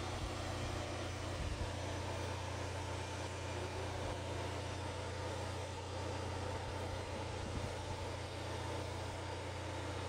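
A steady low drone that holds without a break, with a fainter higher hum over a light hiss.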